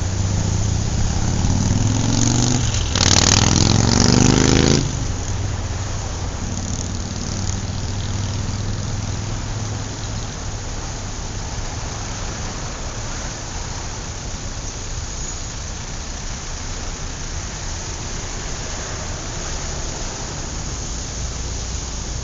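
City street traffic: a steady rumble of vehicle engines and tyres, with one vehicle accelerating close by, its engine rising in pitch and loudest from about two to five seconds in.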